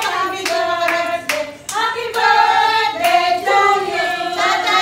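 A group of voices singing a birthday song together, with hand claps breaking in irregularly.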